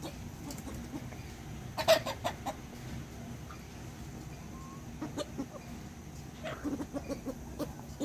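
A flock of domestic chickens clucking as they feed. About two seconds in comes a loud burst of short, sharp calls, the loudest sound here, and quicker runs of short clucks come near the end.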